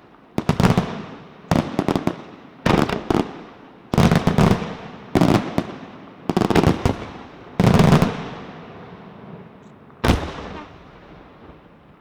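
Aerial fireworks going off in a steady volley, about one every second and a quarter. Each is a quick cluster of loud bangs with an echo trailing after it. After a short gap a last burst goes off about ten seconds in.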